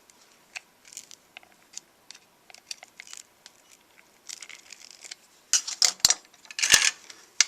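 Plastic casing of a Flip camcorder being pried apart with a tool: scattered small clicks and scrapes, then two louder bursts of crackling with sharp snaps about five and a half and seven seconds in, as the part held by double-sided tape comes loose.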